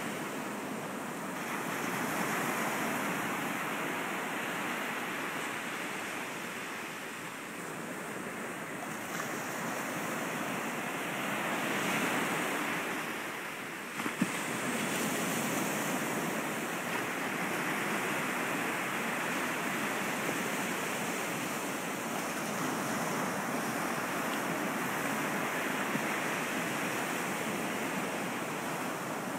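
Small waves breaking and washing up a sand beach, the noise rising and falling with each wave. A single sharp click about halfway through.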